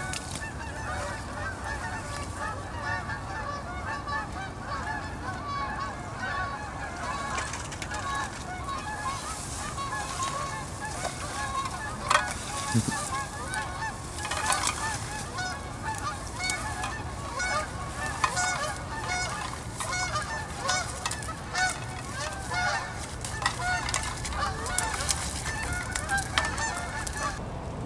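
A flock of geese honking continuously, many calls overlapping, with a sharp knock about twelve seconds in.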